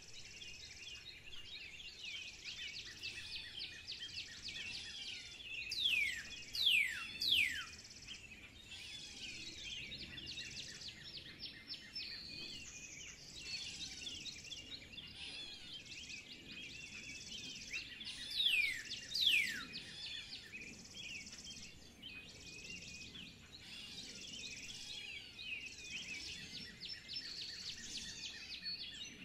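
Birds chirping and singing in a busy chorus, with loud, steeply falling whistles: three in quick succession about six seconds in and two more past the middle.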